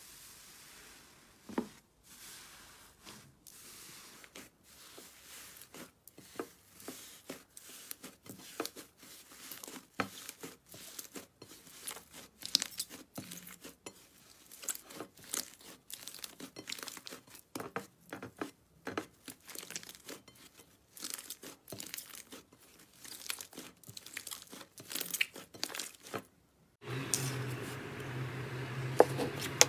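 Hands pressing and kneading a thick, clay-like slime whose dried outer skin tears apart, giving a dense run of small crackling, tearing clicks. Near the end the crackling stops and a steady low hum takes over, with a few soft clicks.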